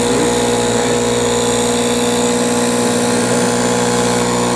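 Stinger refrigerant recovery machine running steadily, a constant mechanical hum at one pitch, as it pulls refrigerant out of the system into a recovery cylinder.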